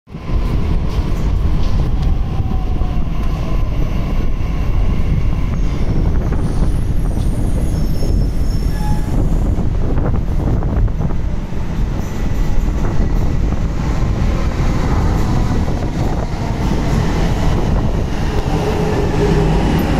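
Delhi Metro train in an underground station, a loud steady rumble of the train running along the platform.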